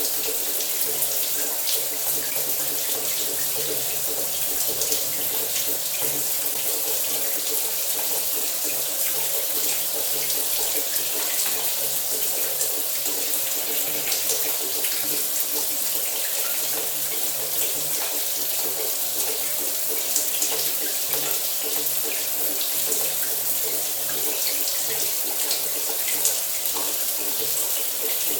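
Shower water spraying steadily, a constant hiss of falling water with small spatters throughout.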